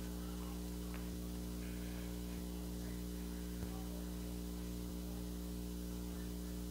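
Steady low electrical hum with a stack of overtones, and faint ticks about every second and a quarter.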